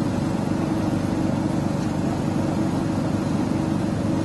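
A parked food truck's motor running at a steady idle: a continuous low rumble.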